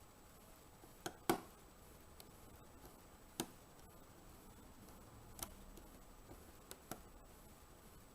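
Lock pick working the pin stack of a 5-pin Era rim cylinder: a handful of sparse, sharp little clicks of pins and pick inside the lock, two close together about a second in being the loudest, the rest single and spaced a second or two apart.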